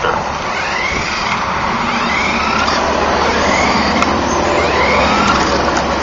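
Fisher-Price toy RC buggy driving in its high-speed gear: its small battery-powered electric motor whines, rising and falling in pitch every second or so, over the noise of its wheels rolling across wooden deck boards.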